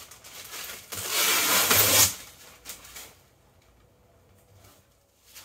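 Hands rubbing along the cured epoxy-fibreglass skin of a trimaran float: a faint rub at the start, then one long, louder rubbing stroke lasting about a second.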